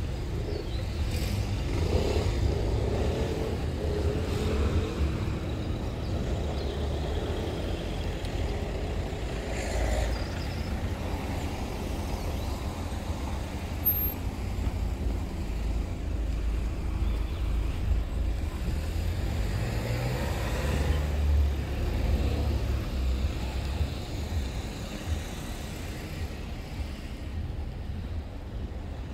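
Road traffic: a slow queue of cars idling and creeping past, a steady low rumble of engines and tyres. About twenty seconds in, one engine rises in pitch as a car pulls away.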